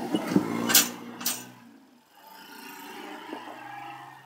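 Car rolling over the level crossing close by, with a few sharp clunks in the first second and a half. Then a quieter steady hum that cuts off suddenly near the end.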